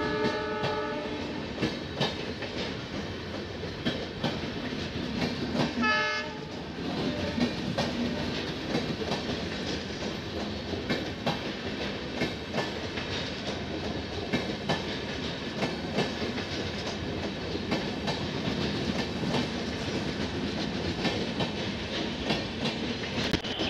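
Indian Railways mail express train of LHB coaches running past the platform: a steady rumble of wheels with clicks over the rail joints. A horn note ends about a second in, and a short horn note sounds about six seconds in.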